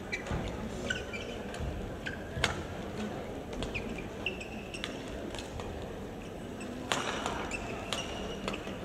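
Badminton doubles rally: rackets sharply hitting the shuttlecock every second or two, with short squeaks of players' shoes on the court mat between the hits.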